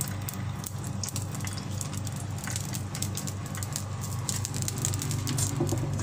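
Hot cooking oil sizzling in a deep-frying pan, with irregular crackles and pops over a low steady hum.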